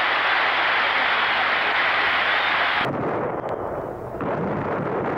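A large crowd cheering and applauding. About three seconds in it cuts off suddenly and gives way to a lower, rumbling din of gunfire and explosions from archival footage of the 1973 coup in Chile.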